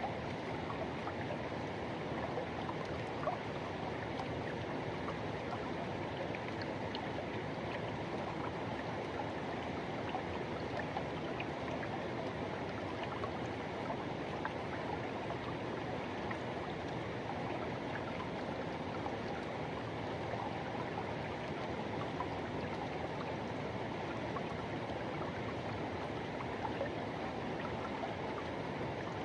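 Forest river rushing steadily over rocks, a constant even rush with small splashes and gurgles.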